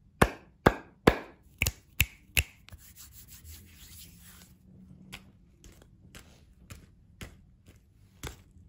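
Hands making sharp taps, six in quick succession over the first two and a half seconds, then a soft rubbing for about two seconds, then a few lighter, spaced-out taps.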